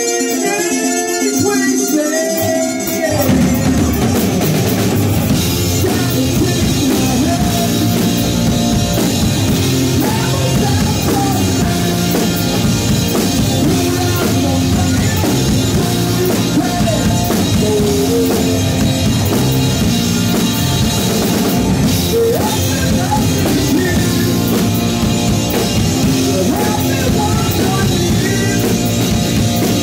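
Live rock band playing: electric guitar, bass guitar, drum kit and a singer on a microphone. A thinner guitar part opens, then the drums and full band come in about three seconds in and carry on steadily.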